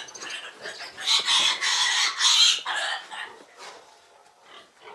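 Piglets squealing loudly as they are grabbed by hand to be taken from the sows for weaning. There are several squeals from about a second in for about two seconds, then only faint, scattered ones.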